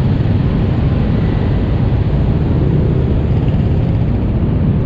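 Steady rumble of heavy, slow-moving road traffic, mostly small motorcycle engines running close by in a jam.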